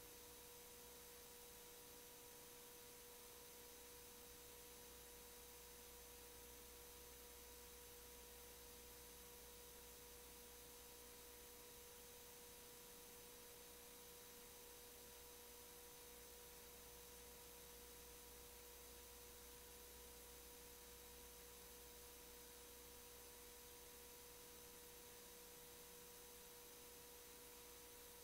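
Near silence: faint steady hiss with a thin unchanging tone running under it.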